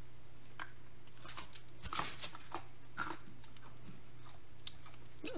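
A person biting and chewing something, heard as scattered short clicks and crunches. The loudest of these comes about two seconds in, with another about a second later.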